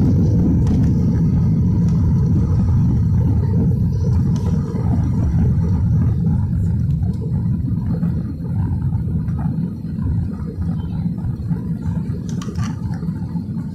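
Airliner cabin noise during climb-out just after takeoff: a steady low rumble of the engines and rushing air heard from inside the cabin, easing a little in the second half.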